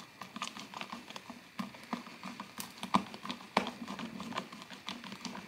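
Clear plastic spoon stirring sticky glue-and-shaving-cream slime in a plastic tub: irregular clicks, taps and soft squelches, several a second.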